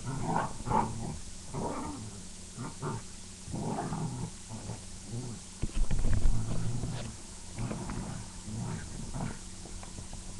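A dog and a cat play-fighting: a string of short, irregular growls and snarls, the loudest a little past halfway.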